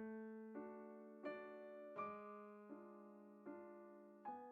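Soft background music: an electric piano playing gentle notes and chords about every three quarters of a second, each ringing and fading.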